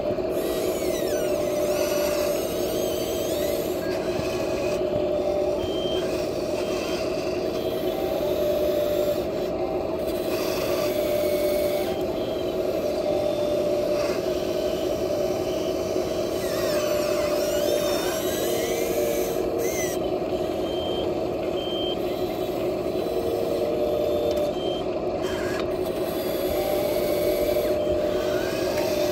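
Small electric motors and gearboxes of radio-controlled toy construction machines whining steadily, their pitch rising and falling now and then as the machines move. Short electronic beeps sound about once a second, like a reversing alarm.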